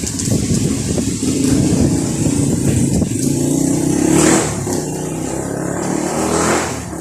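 A motor engine revving, its pitch rising twice: a long climb over the first half and a shorter one near the end.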